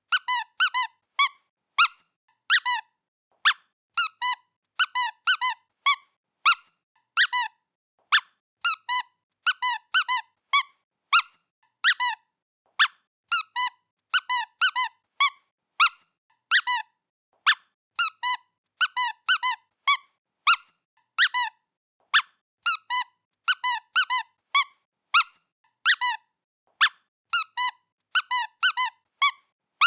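Squeaky cat toy squeaking over and over as it is played with: short, high squeaks about two a second at an uneven pace, often in quick pairs or threes.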